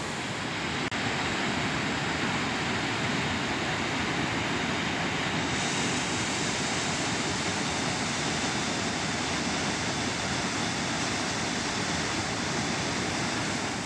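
Mountain stream rushing steadily, a constant full hiss of fast water, with one faint click about a second in.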